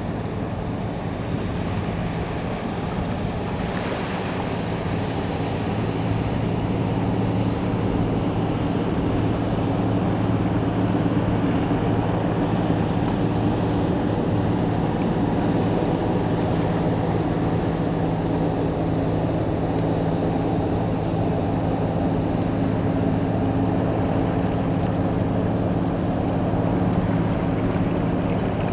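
A cargo ship's diesel engine droning steadily as a low hum with several held tones, growing a little louder in the first few seconds as the ship comes in. Wave wash and wind noise run underneath.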